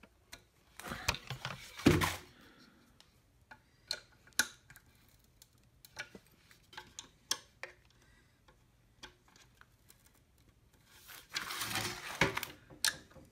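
Hands handling a wooden kids' rocking chair: a cluster of knocks about a second in, then scattered light clicks and taps, and a rough scraping stretch near the end as fingers work at a screw in the frame.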